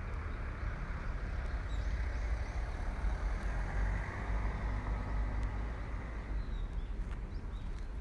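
Footsteps on a paved forest path under a steady low rumble, with a few faint bird chirps around the middle.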